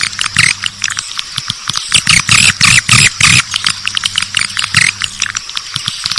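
Swiftlet lure-call recording: dense, rapid twittering chirps of edible-nest swiftlets, many strokes a second, over a low steady hum.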